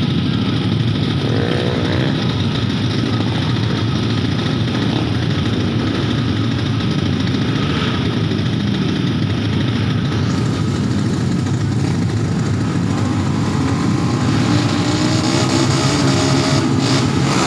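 Small drag-racing motorcycle engines running and revving at the start line, a steady loud engine noise with the revs climbing in the last few seconds.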